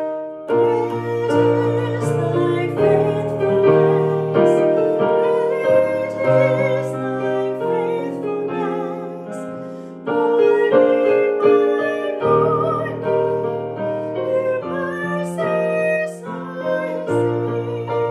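A woman singing with vibrato over piano accompaniment.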